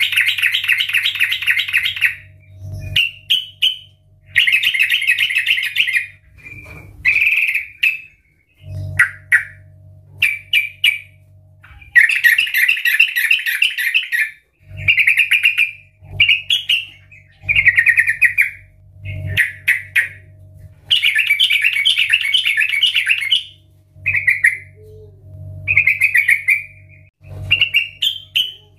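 Yellow-vented bulbul singing loudly: repeated bursts of rapid, bubbling chattering song, several lasting about two seconds, with short clear phrases in between.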